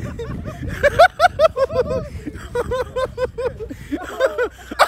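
People laughing in runs of short, quick 'ha' syllables.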